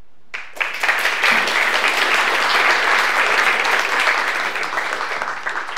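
Audience applauding, building up within the first second and tapering off near the end.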